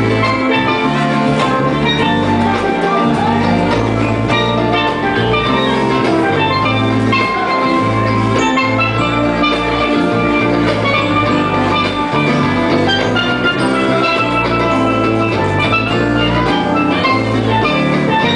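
Live band music led by steel pans playing a melody over a steady bass line.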